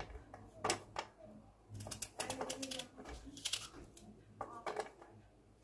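Small knife cutting through a raw onion held in the hand: a series of short, crisp cuts at an uneven pace.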